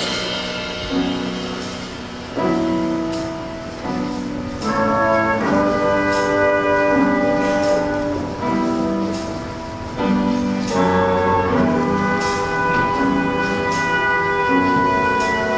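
A live band plays an instrumental passage of a show choir number in a large hall, its brass section holding chords that change every second or so and swell louder in steps, with light cymbal ticks.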